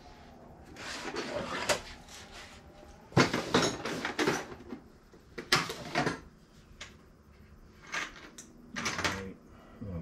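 Hand tools clattering and knocking together in several short bursts as someone rummages through them for a thread tap.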